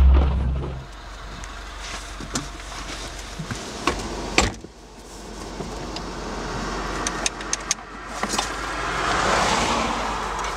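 The tail of a deep intro sting fades in the first second. Then handling noises in the Mini Cooper S Roadster's cabin follow: scattered clicks and knocks, a sharp knock about four and a half seconds in, and a swelling rustle near the end as the seatbelt is pulled across.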